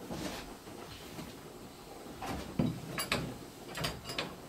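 Wooden knocks and clicks as a steamed oak rib is pressed against the planking of a clinker dinghy and clamped in place, with a cluster of sharp knocks in the second half.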